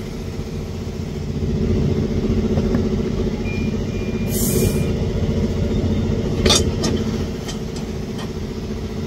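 An engine runs steadily with a low, even hum. About four and a half seconds in comes a short hiss, and a couple of sharp knocks follow a couple of seconds later.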